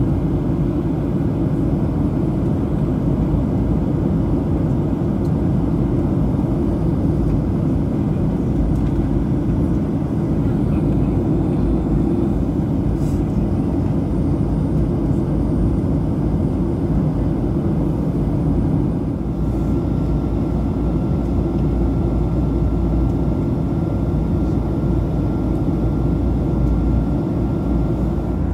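Steady cabin noise of a Boeing 737-700 climbing through cloud, its CFM56-7B engines and the airflow heard from a window seat over the wing, the sound mostly low-pitched. A faint steady high tone joins a little past the middle.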